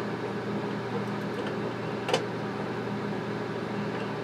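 A steady low electrical hum, with one light click about two seconds in.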